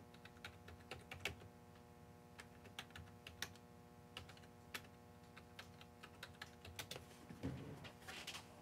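Computer keyboard typing: scattered faint keystrokes as a search query is typed, over a low steady hum. A brief, somewhat louder rustle comes about seven and a half seconds in.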